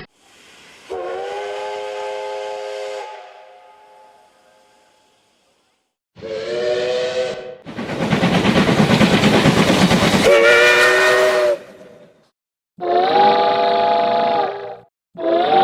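A Japanese steam locomotive's whistle sounding in several separate blasts, each a chord of a few steady tones. Near the middle, a loud rush of steam hiss runs for a few seconds and leads straight into one of the blasts.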